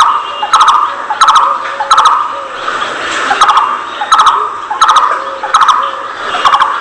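A bird call repeated at a steady pace, about one sharp call every 0.7 seconds.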